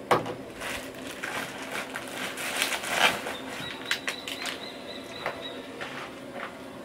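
Rustling and light clicks and knocks of packets and camp gear being handled, with a sharp knock right at the start and a louder rustle about three seconds in. A faint thin high tone holds for about two seconds in the middle.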